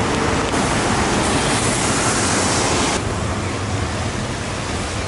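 Steady rain, a dense even hiss that turns duller about three seconds in.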